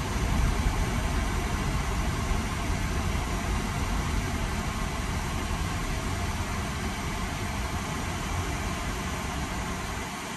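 2001 Mercedes-Benz SLK 320 running, a steady low rumble under an even rushing noise, easing off slightly toward the end.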